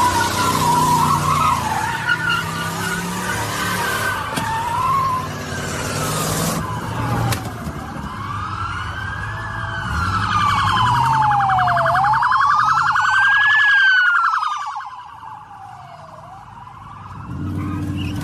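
Car engines running with tyres squealing, then from about seven seconds in a police siren wailing, its pitch sweeping slowly up and down, with a fast-pulsing siren tone alongside it for a few seconds.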